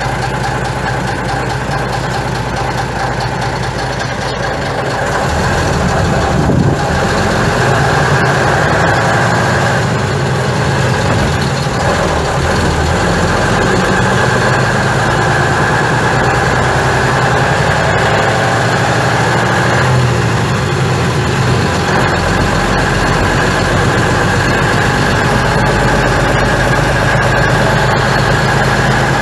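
Skoda 706 RT diesel engine of a 1977 Jelcz 272MEX city bus idling, heard from inside the bus. About five seconds in it grows louder as the bus pulls away and runs on under way.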